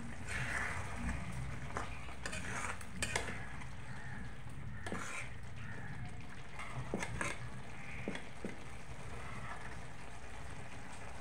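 Metal spatula stirring thick egg curry gravy in a steel kadhai, scraping and clinking against the pan's side several times, over the steady sizzle of the simmering gravy.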